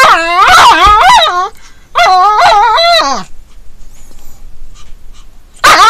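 Japanese Chin dog giving drawn-out, wavering 'aaaa' whine-howls, the attention-demanding yell it uses to pester its companion to play. There are three bouts: one at the start, another about two seconds in, and a third starting near the end.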